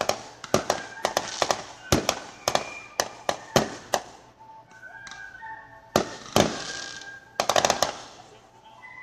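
Aerial fireworks bursting: a quick run of sharp bangs, a short lull about four seconds in, then more bangs and a tight rapid cluster late on.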